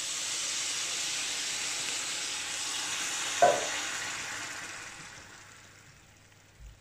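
Chicken, tomatoes and peppers sizzling in a stainless steel pan as pineapple juice is poured in; the sizzle dies away over the last couple of seconds. One sharp clink about halfway through is the loudest sound.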